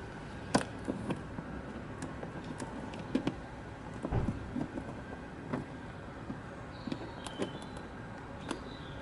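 Scattered light clicks and knocks of plastic being handled: a door flood light and the car's plastic door trim it clips into, with a sharper click about half a second in and a duller knock about four seconds in.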